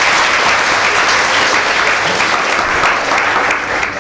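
An audience of students applauding: a steady round of clapping from many hands.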